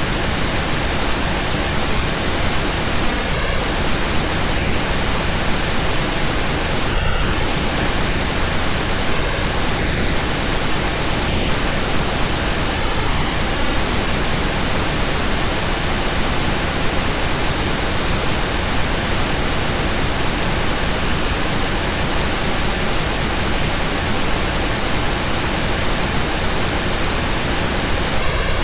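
Steady pink-noise hiss, even from low to high pitches without a break, with faint high-pitched trilling tones that come and go every second or two.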